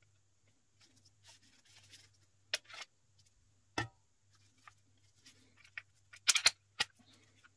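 Handling of a Glock pistol's polymer frame and steel slide, likely being taken apart, with several sharp clicks and clacks: one a little over two seconds in, a knock with a low thud near the middle, and a quick loud burst of clacks followed by one more toward the end. Faint rustling, as of disposable plastic gloves, runs between them.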